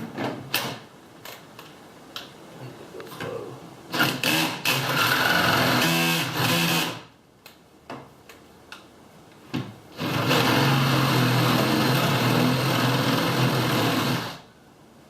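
Drill boring into the plywood door to enlarge the hole for a door handle, run in two bursts of a few seconds each with a steady motor hum, with a few light knocks in between.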